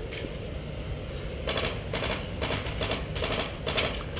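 Footsteps crunching on dirt, with gear rustling close to a head-mounted camera, over a low wind rumble. Uneven crunches begin about a second and a half in.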